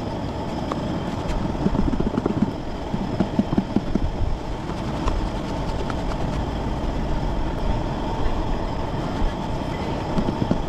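Fish pieces shaken in a lidded plastic container of flour, cornstarch and black pepper, soft muffled knocks at intervals, over a steady low rumble.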